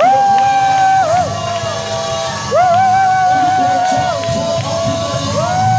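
Worship music in a church: three long held high notes, each starting with an upward scoop and ending with a drop, over a steady hum of congregation noise.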